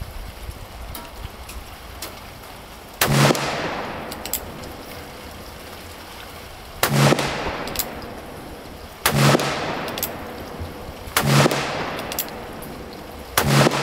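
Five shots from a Colt Cattleman black-powder revolver with a 4¾-inch barrel, loaded with 30 grains of Swiss 3F powder. Each sharp report is followed by an echo that fades over about a second. The first two shots are about four seconds apart and the rest about two seconds apart, with faint clicks in between.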